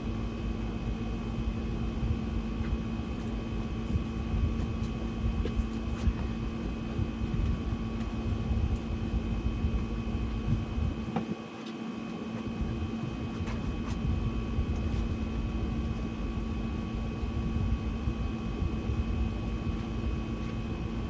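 A steady mechanical hum with a low rumble under it and a few faint clicks. The rumble drops away briefly about halfway through.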